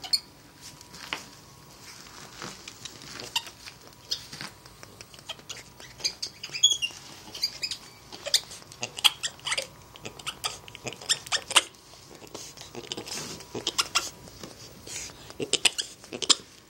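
Spider monkey scrambling about close by: irregular rustling and clicking from the wood-shaving bedding and cage, with a short high chirp about seven seconds in.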